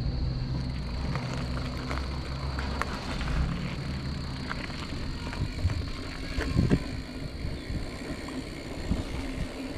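Wind buffeting the microphone and road noise on a moving ride, a rough, uneven low rumble with scattered light clicks and rattles.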